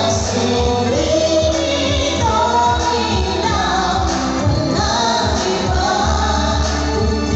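Women singing pop music live into microphones over amplified backing music, with a heavy bass beat pulsing steadily underneath.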